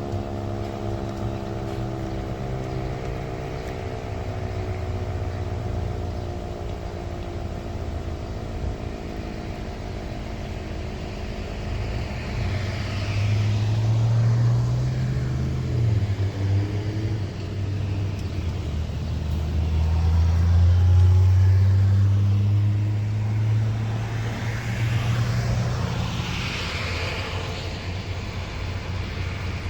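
Sentry 10V storm siren winding down at the end of its alert test, its tone falling slowly in pitch and fading over the first several seconds. A low vehicle rumble runs underneath and swells twice, loudest a little after the middle.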